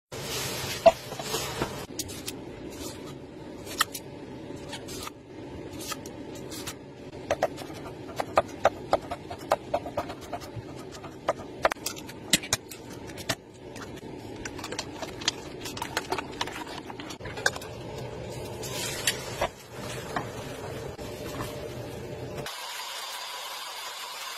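Kitchen sounds of utensils clicking and tapping against a glass bowl and a non-stick frying pan over a steady background noise, with a quick run of taps about a third of the way in. About two seconds before the end the sound changes abruptly to a thin steady hiss.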